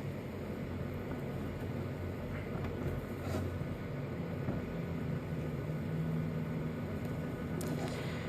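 Vintage JC Penney radio switched to the AM band, giving a steady static hiss with a low hum and no station coming in.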